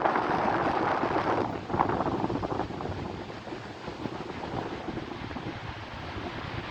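Wind buffeting the microphone outdoors: a rushing, rumbling noise that is stronger for the first couple of seconds, then eases to a lower, steady gusting.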